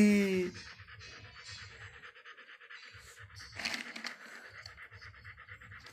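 Doberman panting in a fast, even rhythm, with a short scuffling noise about three and a half seconds in.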